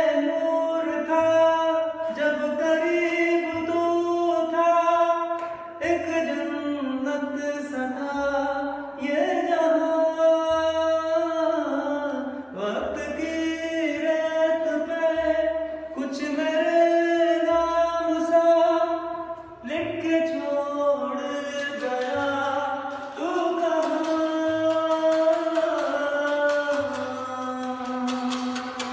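A man singing a slow, melodic song, one voice with long held notes that slide and waver between pitches.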